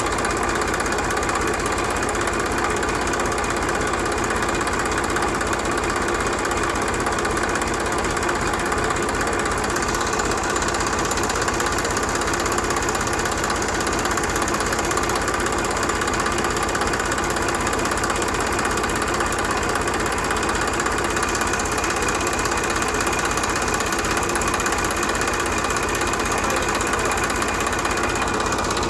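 Small engine running steadily at an even speed, with a fast rattling pulse and no change in pitch.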